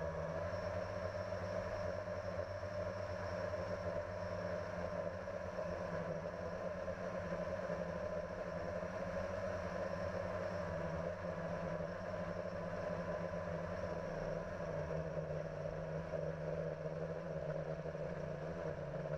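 Multirotor drone motors and propellers running steadily, picked up by the camera mounted on the drone: a constant buzz with a faint high whine over it.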